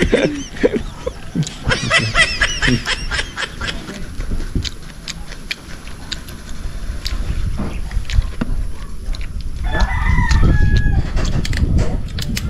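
Birds calling outdoors: a quick run of repeated high notes about two seconds in, and a longer pitched call with a falling end about ten seconds in. Small clicks of eating are heard between the calls.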